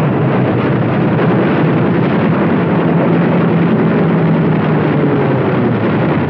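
Propeller aircraft engines droning steadily, without a break.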